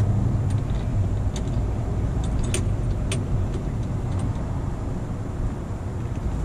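A steady low rumble, with a few light metallic clicks and taps from the laptop-mount pole and its clamp hardware being handled and tightened, most of them in the first half.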